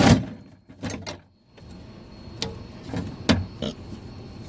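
A loud cutting noise stops right at the start, then a handful of separate light knocks and clicks as the cut-out piece of plastic car door panel is worked loose and handled.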